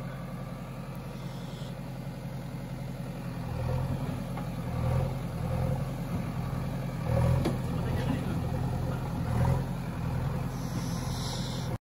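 Backhoe loader's diesel engine running as the machine moves slowly along the road, with a steady low throb that swells in several short revs.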